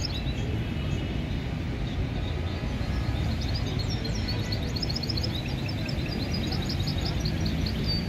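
Caged goldfinch × canary hybrid (a 'mixto') singing a fast run of high chirps and twitters, starting about three seconds in, over steady low background noise.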